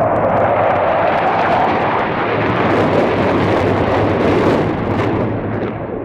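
Jet roar of a Panavia Tornado GR4's twin RB199 afterburning turbofans as the aircraft flies past, loud and steady, then fading near the end as it draws away.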